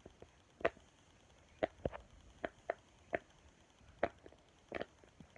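Silicone Pop It fidget toy having its bubbles pressed one after another from its quiet side: about eight short, soft pops at uneven spacing.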